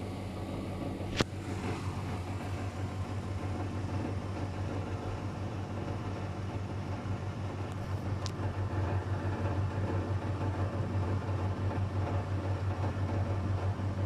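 Luxor WM 1042 front-loading washing machine running its spin with an unbalanced load, the laundry bunched to one side of the drum: a steady motor hum under a rough, wavering drum rumble, with one sharp click about a second in.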